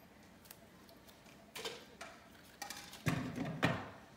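Metal folding step stool knocking as a person climbs onto it: a few light knocks, then two heavy thuds about three seconds in as the feet land on the steps.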